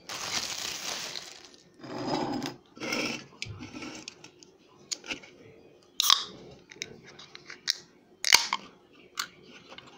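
Crinkling rustle of a plastic bread bag being handled, then light clicks and knocks of an aluminium drink can being picked up. A sharp crack comes near the end as the ring-pull is worked open.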